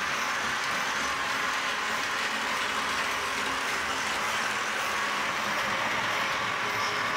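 Lionel O-gauge James LionChief model locomotive running on its track: a steady whir of the electric motor and gearing with its wheels rolling along the rails.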